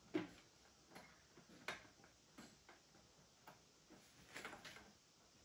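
Mostly near silence, broken by a few faint, irregular clicks and taps as a USB plug and its cable are fitted blind into a port at the back of a TV; the sharpest click comes just after the start, with more about a second and a half later and a small cluster near the end.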